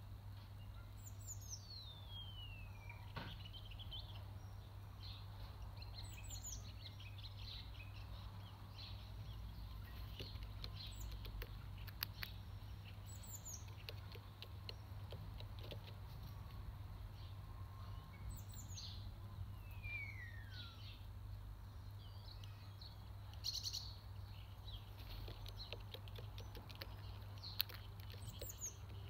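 Faint garden songbirds calling: scattered short high chirps and two long falling whistles, over a steady low hum. A few sharp taps stand out, about 12 seconds in and near the end.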